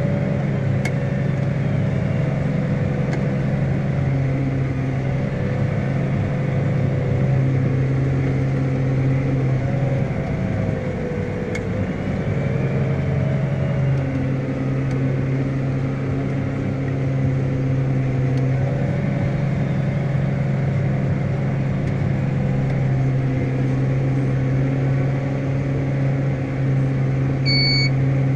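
New Holland T7.245 tractor's six-cylinder diesel engine running steadily under load as it pulls a tillage implement, heard from inside the cab. Its note sags and wavers briefly about ten seconds in, then settles. A few short high beeps sound about once a second near the end.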